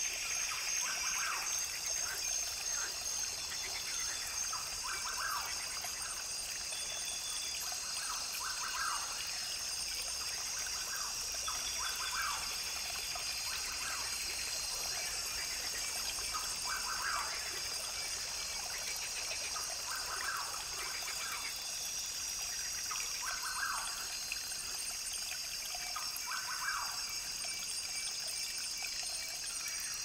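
Rainforest ambience: a brook trickling steadily, with birds calling and one call repeating every few seconds.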